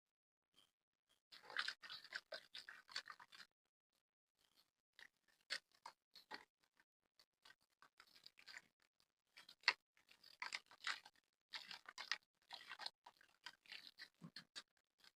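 Hard, gritty dried black mud crunching and crumbling apart, in several spells of dense crackling with short quiet gaps between them.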